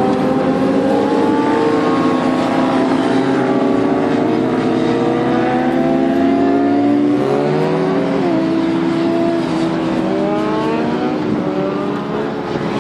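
Sport motorcycle engines running and revving as bikes pull away and ride past, several engine notes at once sliding up and down in pitch over a steady engine drone, with passing road traffic.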